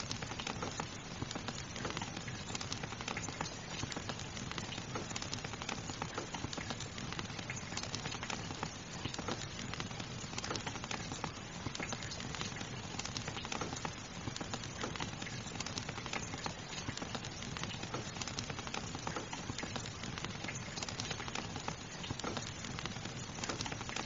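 Steady rain with a fire crackling: an even hiss sprinkled with frequent small pops and ticks.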